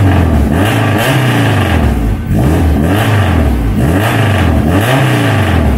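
Honda Integra DC2's four-cylinder engine being free-revved through a 3-inch JS Racing exhaust before it is swapped. The pitch rises and falls several times as the throttle is blipped.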